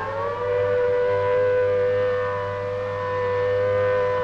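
Civil defence air-raid siren wailing: it rises at the start and then holds a high, steady note. It is sounding London's first air raid warning of the war.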